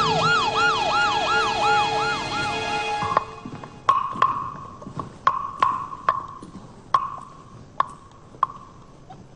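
Police vehicle siren yelping in fast, repeating falling sweeps, cutting off about three seconds in. It is followed by a series of sharp percussive knocks, each ringing briefly at one pitch, irregularly spaced about half a second apart and slowly fading.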